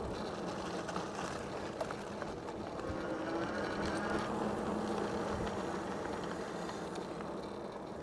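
Electric bike's 750 W brushless hub motor whirring steadily under power as the bike rolls along pavement, with a steady hum and a faint higher whine a few seconds in.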